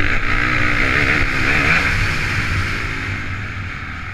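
Honda CRF450 motocross bike's single-cylinder four-stroke engine revving hard, its pitch rising and falling with the throttle, under a strong rush of wind noise. It eases off in the second half.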